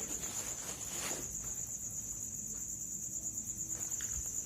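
Crickets chirring in a steady, high, continuous trill, with a faint low rumble beneath.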